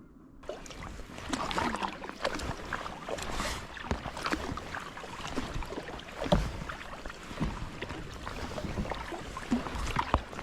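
Kayak paddling: irregular paddle splashes and water slapping against the hull. It starts abruptly about half a second in.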